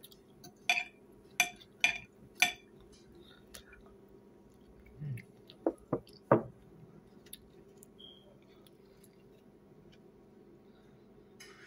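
Knife and fork clinking and scraping on a ceramic dinner plate: four sharp clinks in the first couple of seconds, then a few short squeaks about five to six seconds in. A faint steady hum runs underneath.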